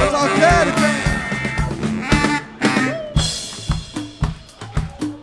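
Live band playing a Brazilian funk groove: the full band for about two and a half seconds, then after a brief break it drops to a sparse drum-and-bass groove with a steady kick beat a little under twice a second.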